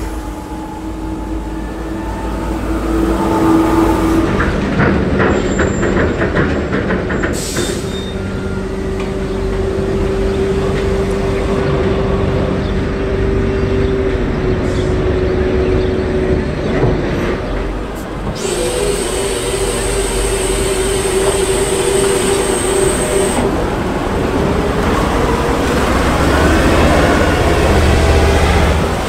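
Heavy military vehicle diesel engines running under load with a steady whine. The sound changes abruptly several times where the clips are cut together.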